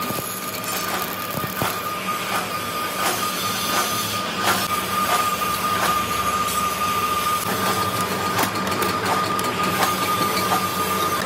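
Metal shaping machine running, its ram stroking back and forth with a knock about every 0.7 seconds over a steady high whine.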